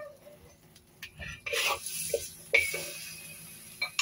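Metal spatula scraping and clinking against a wok as cooked chicken feet are scooped out onto a ceramic plate. A few light clicks come first, then two louder scrapes about one and a half and two and a half seconds in.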